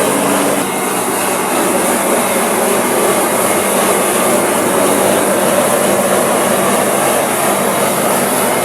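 Loud, steady machine noise, like a running engine, with a low hum that drops out about half a second in.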